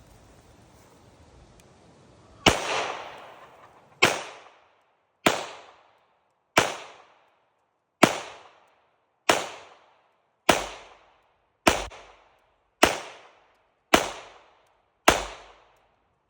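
Beretta 92XI Gara 9mm pistol fired eleven times in slow single shots, roughly one a second and a bit apart, starting a couple of seconds in. Each shot is a sharp crack with a short fading echo.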